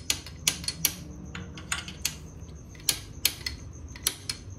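Wrenches tapping and knocking on a steel engine-mount bracket to shift it into alignment. It is a string of sharp, irregular metal-on-metal taps, about two or three a second.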